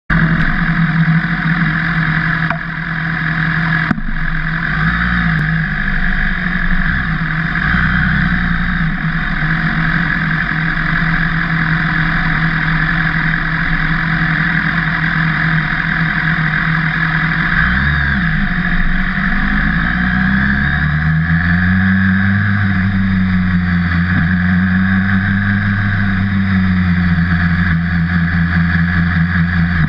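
BMW HP4's 999 cc inline-four engine idling in neutral, then pulling away gently in first gear at pit-lane speed; in the second half the engine note rises and falls in slow waves. A couple of short clicks come in the first few seconds.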